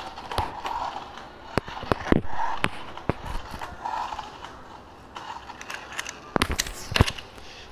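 Six-volt remote-control toy car driving on a tiled floor: its small electric motor whines in short bursts as it starts and stops, with a scatter of sharp clacks and knocks, the loudest about two seconds in and near the end.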